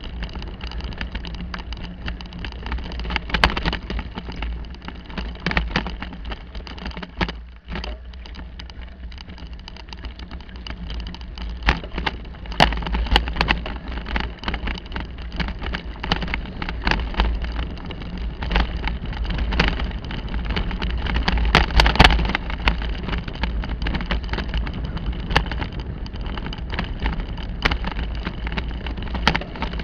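Bicycle rolling over a rough dirt forest track: a steady low rumble of wind and tyre noise, broken by frequent sharp knocks and rattles as the wheels hit bumps, thickest about halfway and again about two-thirds through.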